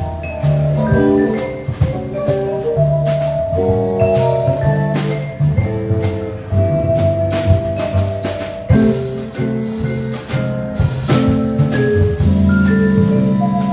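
A live jazz combo playing, with the vibraphone prominent over electric guitar, upright bass and drum kit, and a trumpet.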